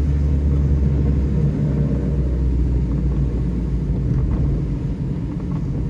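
Steady low rumble of a car's engine and tyres heard from inside the cabin while driving on a wet road.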